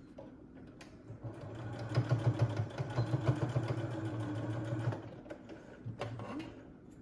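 Domestic electric sewing machine stitching through cotton face-mask fabric. It speeds up about a second in, runs steadily until it stops near five seconds, then gives a short second burst of stitches about a second later.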